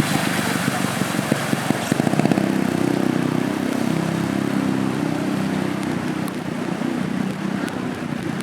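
An engine running steadily at a constant speed, with a few short clicks between one and two and a half seconds in.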